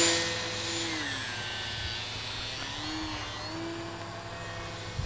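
Electric motor and propeller of a homemade RC aerobatic plane whining just after a hand launch. The whine is loudest at first, drops in level and pitch within about a second as the plane flies away, then carries on softer, wavering up and down in pitch.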